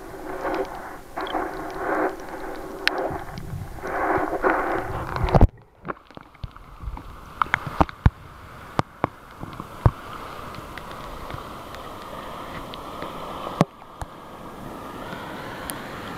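Sea water heard through an underwater camera: muffled swishing and bubbling with a steady hum. About five and a half seconds in, the camera breaks the surface and the sound changes to small splashes and clicks of water lapping against the housing, with wind on the microphone.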